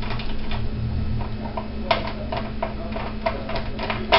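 Screwdriver driving screws through the metal bottom of a DVR case into a hard drive: a run of irregular sharp metallic clicks and ticks starting about two seconds in, over a steady low hum.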